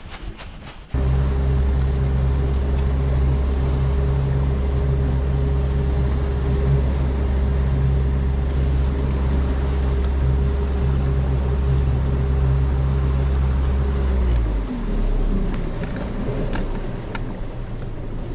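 Honda 90 four-stroke outboard motor running steadily under way after a quiet first second; about 14 seconds in its pitch falls as it is throttled back, and it runs on lower and quieter.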